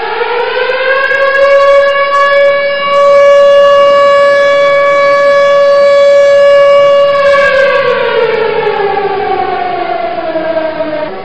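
Civil defense air-raid siren sounding an attack warning: it winds up to its full pitch, holds one steady tone for about six seconds, then winds down with the pitch falling.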